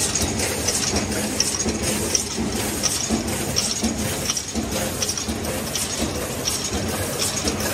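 Aluminium aerosol can printing line running: the chain conveyor and can-feed mechanism clattering steadily, with a regular clicking about twice a second over a continuous machine hum.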